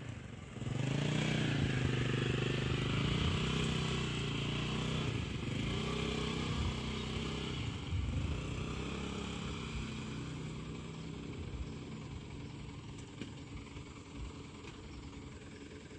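Diesel dump truck engine revving hard under load as the truck strains to climb a slippery mud track, its pitch rising and falling. It comes in loud about a second in and dies down over the last few seconds.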